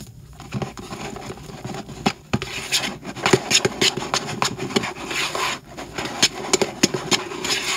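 White glue being stirred into shaving foam in a bowl with a plastic spatula: steady squishing and scraping against the bowl, with many small clicks from the foam.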